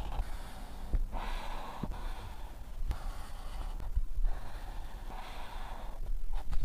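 Black felt-tip marker drawing on paper: scratchy strokes in short runs with brief pauses between, and soft knocks now and then as the pen and hand move on the sheet.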